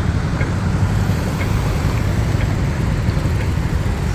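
Steady road traffic running past, with a pedestrian crossing's push-button signal giving a short high beep about once a second.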